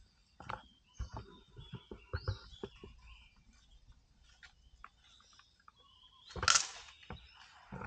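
Asian elephant feeding in forest vegetation: irregular snaps and cracks of twigs and branches, and a loud rustle of leaves about six and a half seconds in. Birds chirp in the background.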